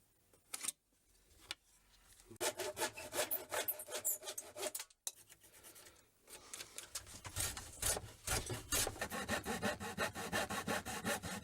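Hand saw cutting through a glued-up pallet-wood panel in quick back-and-forth strokes, about four a second, in two bouts with a short pause between.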